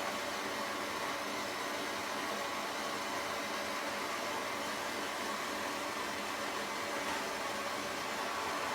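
Handheld gas torch flame hissing steadily while it heats a copper pipe joint for soldering.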